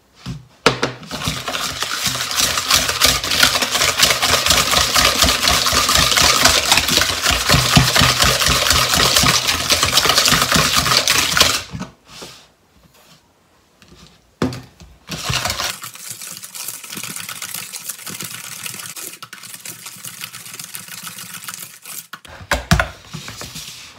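Wire whisk beating softened butter and granulated sugar in a plastic bowl: a fast, steady run of clicks and scrapes as the wires strike the bowl. It stops about halfway through, starts again more quietly for several seconds, and a knock follows near the end.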